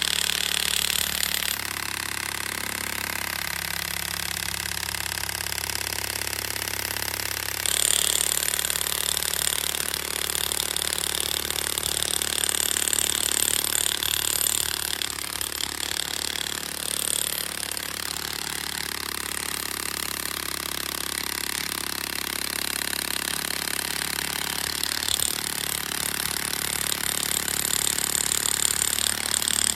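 Cordless impact wrench hammering steadily as it screws a 46-inch PE46-Hex helical earth anchor into gravel ground, with the tool's rattling growing louder in stretches.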